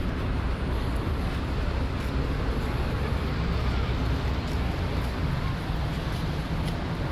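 Steady city traffic noise: a constant low rumble of road vehicles.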